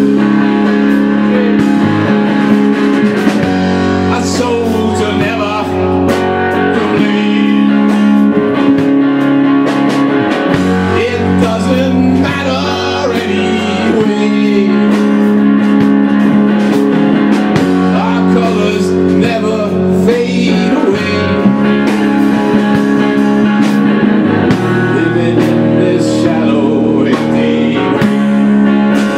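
Live rock band playing: electric guitars over a drum kit, with a held low note that changes every few seconds and cymbals splashing on top.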